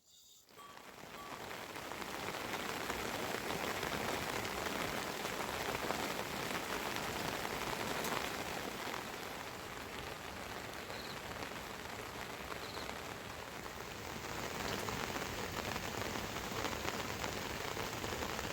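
Steady rain falling, fading in over the first couple of seconds and then holding even.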